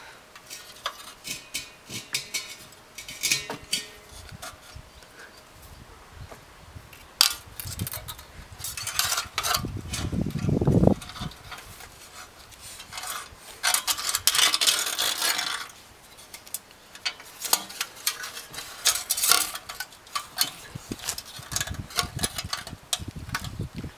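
Baling wire being twisted and wrapped by hand around a copper propane pipe on a small engine: irregular metallic clinks, scrapes and rattles.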